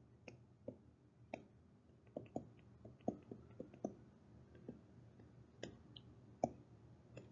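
Faint, irregular clicks and taps of a stylus on a tablet while handwriting, about fifteen small ticks scattered unevenly over several seconds.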